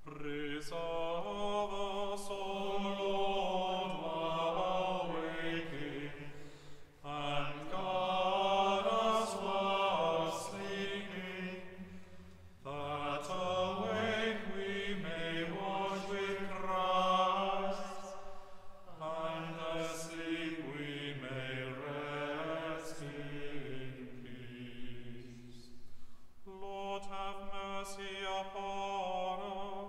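Small choir chanting a sung office in phrases of about six seconds, each followed by a short pause for breath, in a reverberant stone chapel.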